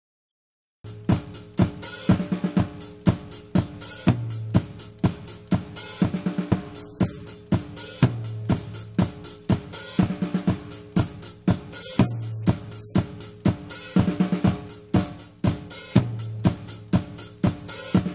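A recorded drum kit playing a steady groove of kick, snare, hi-hat and cymbals. It starts abruptly about a second in, with a pattern that repeats about every four seconds.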